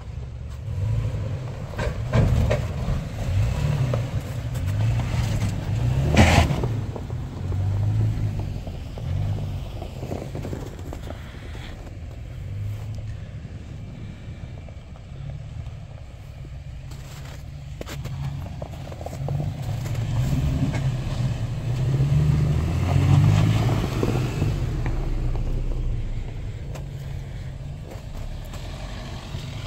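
A 4x4 truck driving over a rough off-road trail: the engine and drivetrain run low and uneven, swelling and easing off, with a few sharp knocks from the bumps, the loudest about six seconds in.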